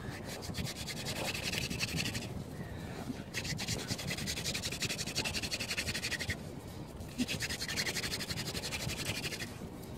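Hand-drill spindle spun rapidly back and forth between the palms, the wooden shaft grinding into a chaga fungus hearth under hard downward pressure with a fast rhythmic rasp. It comes in three runs broken by short pauses as the hands go back to the top of the spindle.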